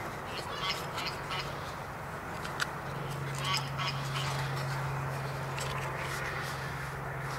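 Light hard-plastic clicks and handling noise from a red plastic extension-cord connector being fitted around two joined plugs, with the sharpest click about two and a half seconds in. Poultry call in the background over a steady low hum that stops for a few seconds early on and comes back.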